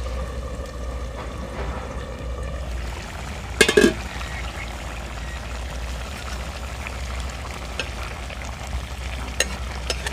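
Papaya and chickpea khar cooking in a covered pan: a steady sizzling, bubbling hiss, with one short clatter about three and a half seconds in and a couple of light clicks near the end.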